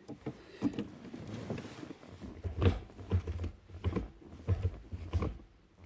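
Handling noise: irregular light clicks, taps and rustles, with a low rumble from about two seconds in.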